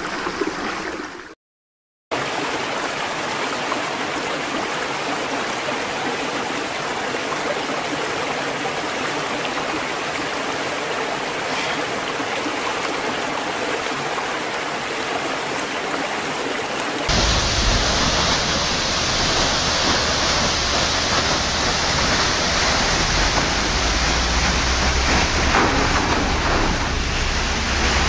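Steady rushing of flowing water, a stream or waterfall, broken by a moment of silence just after the start. About two-thirds of the way through it cuts to a louder, fuller rush with a deep rumble underneath.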